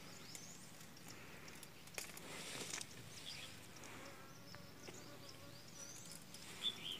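Faint buzzing of a flying insect, with a few faint high chirps.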